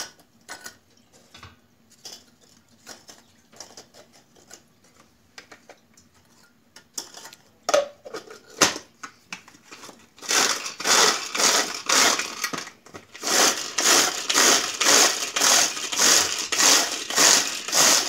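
Biscuits dropped into a hand-pulled food chopper and its lid fitted with a few light clicks and knocks, then, from about ten seconds in, the pull cord worked again and again, about twice a second, each pull whirring the blades through the biscuits as they are crushed to crumbs.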